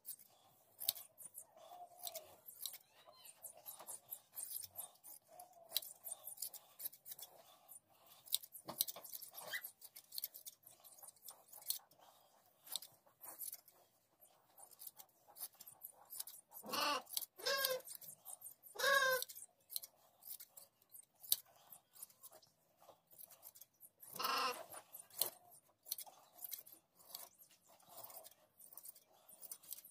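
Hand shears snipping through a sheep's fleece in a run of quick clicks, and the sheep bleating three times in the second half, the loudest sounds here.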